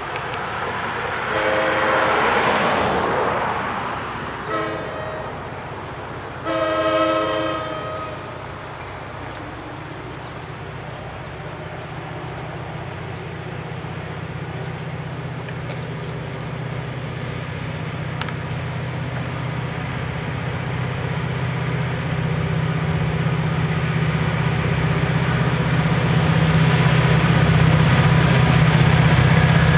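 Approaching EMD GP40FH-2 diesel locomotive sounding its horn in three blasts, a short one between two longer ones, with a rushing whoosh under the first. Then its engine drone grows steadily louder as the train nears.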